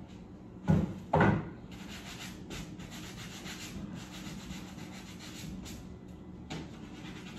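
Hand sanding block rubbing over cut 2x4 lumber in rapid back-and-forth strokes, smoothing the wood before it is painted. Two loud short knocks come about a second in.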